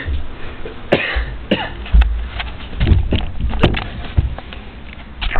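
A person coughing hard several times, mixed with sharp knocks, rustle and rumble from a handheld camera being handled.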